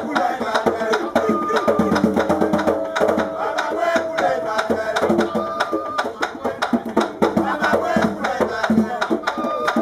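Danmyé music: a bèlè drum played by hand under a fast run of sharp clicks, with a voice singing a line held for a couple of seconds midway.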